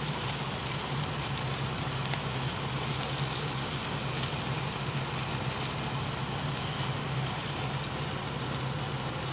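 Open gas flame under a wire grill with whole fish charring on it: a steady rushing flame noise with faint crackles and sizzling from the fish, over a steady low hum.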